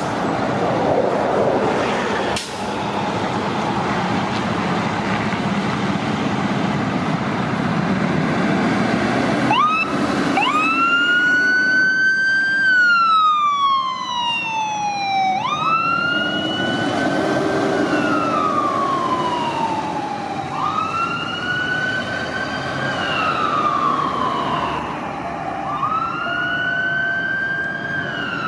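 Aerial ladder fire truck's engine running as it pulls out. About ten seconds in, its siren starts wailing in slow cycles, each a quick rise followed by a long falling tone, repeating about every five seconds.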